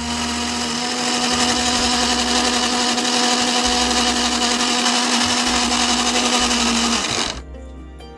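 Electric mixer grinder with a stainless steel jar running at full speed, blending java plums and water into a pulp: a loud steady whir with one steady motor tone. It switches off about seven seconds in and winds down quickly.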